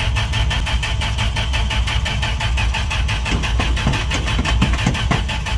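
Starter cranking the 1969 Dodge D100 pickup's engine in a steady, even rhythm of about nine beats a second, without the engine catching. It is getting fuel but won't fire, and the owner suspects the battery needs another jump.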